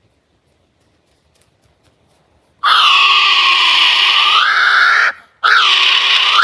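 A bird screeching: a long, raspy scream of about two and a half seconds that bends down and back up in pitch at its end, then a second scream starting after a short pause.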